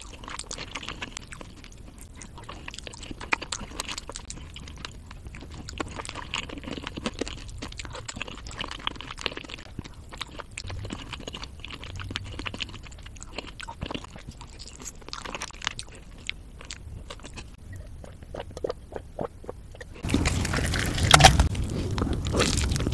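Close-miked chewing and mouth sounds of someone eating rotisserie chicken meat, with many small clicks. About twenty seconds in it cuts to a louder recording of another person eating chicken.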